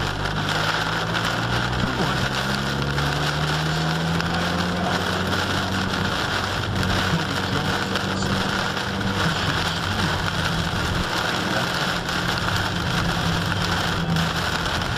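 A car driving on a wet highway in a heavy rainstorm, heard from inside the cabin: rain hitting the car and a steady wash of tyre and road noise over a low engine hum that drifts slowly in pitch.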